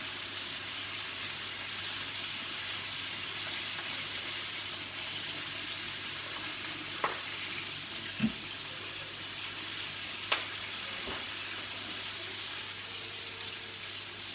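Flour-coated chicken pieces deep-frying in a pot of hot oil, a steady sizzle, with three short sharp knocks about 7, 8 and 10 seconds in.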